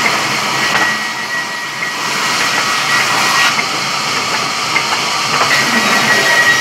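Sawmill saw cutting wood: a loud steady hiss with a thin high whine that drops out about two seconds in and comes back near the end, with a few light clicks.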